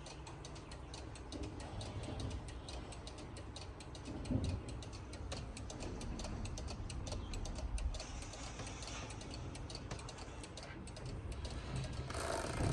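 Regula cuckoo clock movement ticking steadily with evenly spaced ticks.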